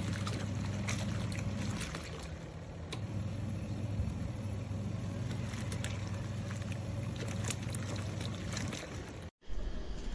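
HODEKT 7.5 kg mini single-tub washing machine running, its motor humming steadily while water churns in the tub; the hum drops briefly about two seconds in and the sound cuts off near the end.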